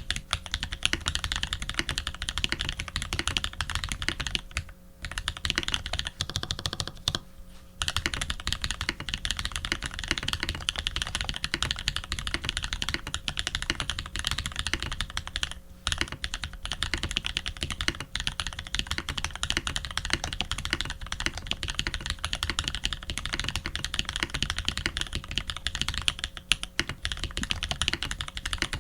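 Fast typing on a custom TX87 v2 mechanical keyboard: lubed Holy Panda tactile switches on a brass plate under PBT keycaps, giving a dense run of keystroke clacks. Typing breaks off briefly about five seconds in, again around seven seconds, and once more near the middle.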